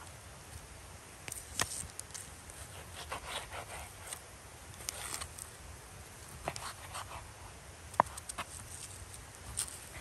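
Knife cutting raw meat into chunks on a wooden board: soft scrapes and small clicks of the blade against the wood, with one sharper tap about eight seconds in.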